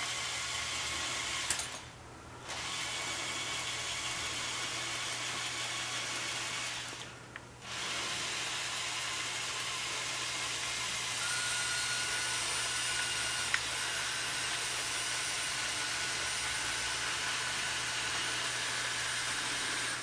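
Electric motors and gear trains of a LEGO Technic 42100 Liebherr excavator whirring as its tracks drive and turn it. The whirring stops for about a second twice in the first eight seconds, then runs on steadily, and a higher steady whine joins about halfway through.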